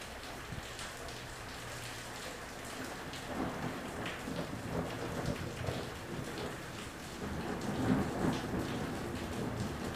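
Rain falling steadily, with thunder rumbling that builds from about three seconds in and is loudest near eight seconds.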